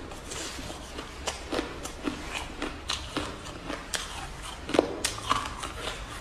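Close-miked crunching of freezer frost being bitten and chewed, a run of irregular sharp crunches and crackles with a louder crunch near the end.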